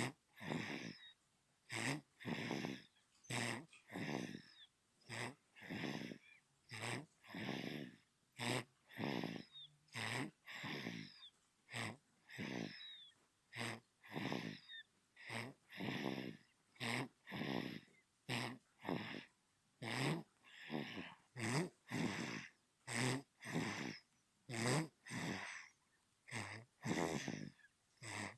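A sleeping newborn baby snoring: short, snuffly breaths in a quick, even rhythm, about three every two seconds, with brief pauses between them.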